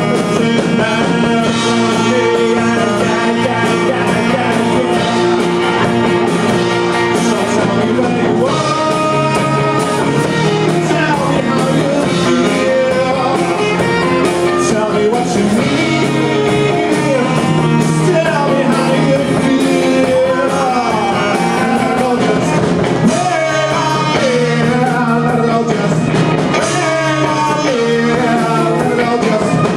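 A live rock band playing a song with a male lead singer, guitar and drums.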